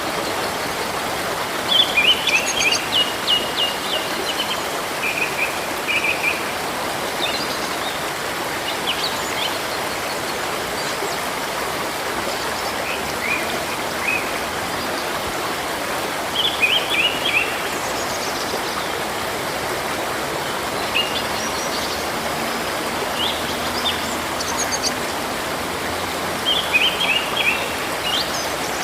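Steady rush of a flowing river or stream, with a songbird singing a short phrase of quick notes three times about ten seconds apart and a few single chirps between.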